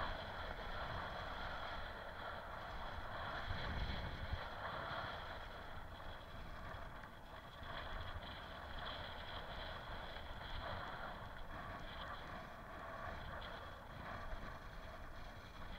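Wind rushing over the microphone and the rumble of bicycle tyres rolling fast downhill on a rough concrete track, steady throughout, a little louder about four seconds in.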